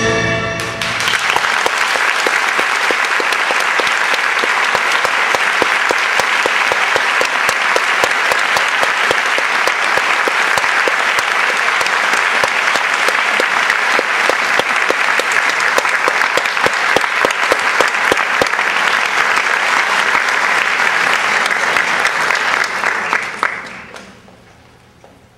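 Orchestral music ends on its last chord right at the start, and a large audience breaks into loud, sustained applause that dies away near the end.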